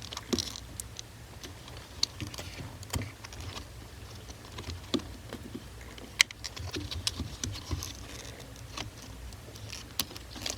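Scattered light clicks and taps of hard plastic as a steering-wheel airbag module and its surrounding trim are handled and tilted out by hand, irregular, a few a second at most.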